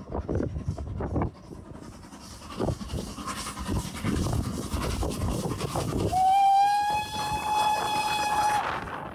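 LB&SCR A1X Terrier 0-6-0 tank locomotive No. 2678 passing under steam with its exhaust chuffing. About six seconds in it gives one long steam whistle that rises briefly in pitch and then holds steady for about two and a half seconds.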